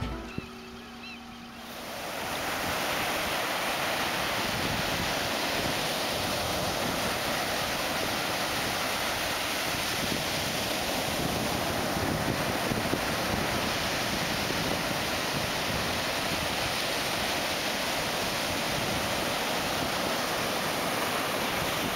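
Ocean surf breaking and washing up a sandy beach, a steady rushing noise that swells in about two seconds in.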